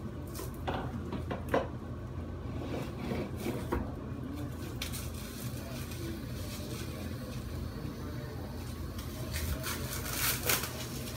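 Plastic cling wrap being pulled off its roll and stretched by hand, crinkling and crackling in irregular bursts, with a louder flurry of crackles near the end, over a steady low hum.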